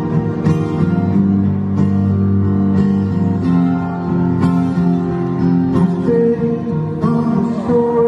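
Acoustic guitar strummed slowly and amplified, its chords ringing on between strokes at roughly one strum a second, heard live from the audience in a concert hall.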